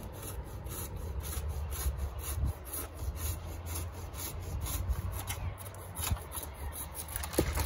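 Hand pruning saw cutting through a thick apple tree limb with steady, even back-and-forth strokes. This is the first cut, made away from the main branch to take off the limb's weight so its bark does not peel.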